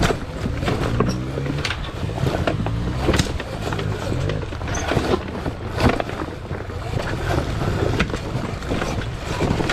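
Sur Ron electric dirt bike crawling over loose boulders: repeated sharp knocks and clatters of the tyres, suspension and frame on rock, over a low drone that wavers in pitch during the first few seconds.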